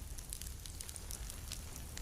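Campfire crackling: a scatter of small, light crackles over a low steady rumble.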